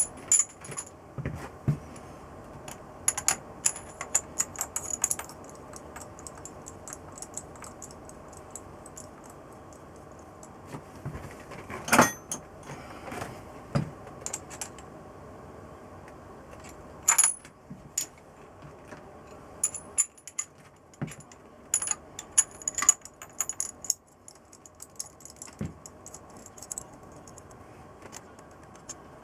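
Metal hand tools and small engine parts clinking and clicking on and off, with a few sharper clacks about 12 and 17 seconds in, over a steady faint hum.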